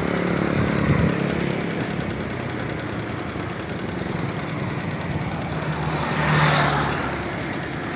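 Large diesel bus engine running steadily, with a fast, even pulsing beat. About six seconds in, a brief rushing hiss swells and fades.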